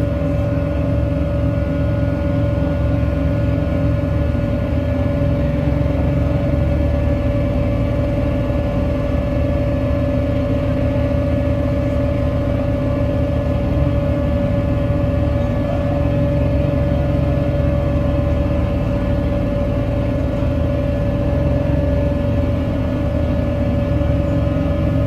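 Live harsh noise music: a loud, dense, churning low rumble with one steady high tone held over it.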